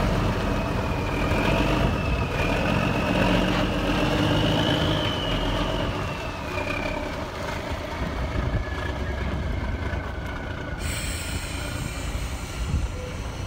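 The 1989 Freightliner FLD120 dump truck's diesel engine idling steadily, with a high wavering whine over the first half.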